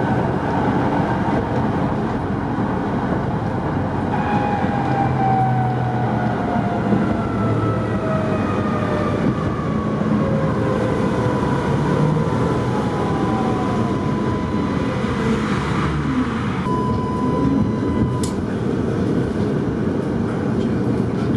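Running noise heard from inside a Tatra T5C5 tram on its track, a steady rumble with the traction motors' whine falling slowly in pitch as the tram slows, arriving at a stop.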